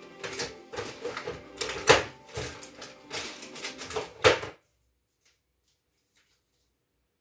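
A quick run of clicks and small knocks with two louder, sharper knocks, typical of kitchen items being handled on a worktop; it cuts off suddenly about four and a half seconds in.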